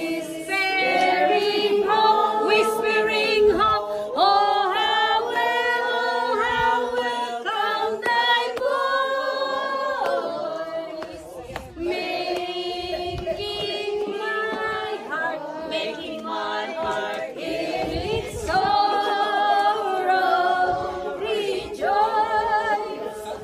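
A group of people, mostly women, singing a song together, unaccompanied.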